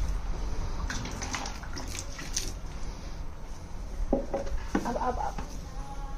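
Water splashing and dripping as a small plastic mug is dipped into and poured out over a plastic tub of water, with a few short vocal sounds about two-thirds of the way through.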